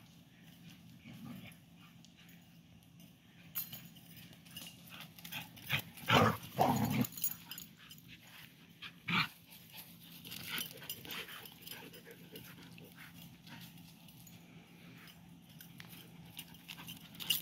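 Dogs playing rough, scuffling through grass and gravel, with two loud short dog vocalizations, one about six seconds in and one about nine seconds in.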